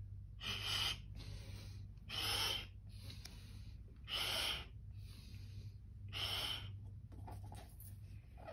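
A person blowing up a balloon by mouth: four strong breaths, each about half a second long and about two seconds apart.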